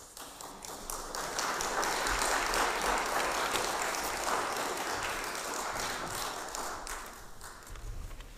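Congregation applauding: the clapping builds over the first second or so, holds steady, and dies away over the last couple of seconds.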